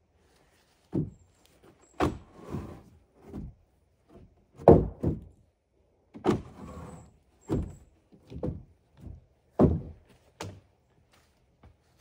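A series of irregular knocks and thuds, more than a dozen over the stretch, some loud and some light, spaced roughly half a second to a second apart, with the loudest about five seconds in and again near ten seconds.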